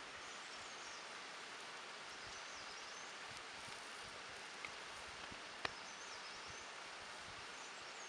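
Steady outdoor hiss with a bird chirping faintly and high several times. Midway come two sharp light clicks about a second apart, from the metal spatula knocking against the salt slab.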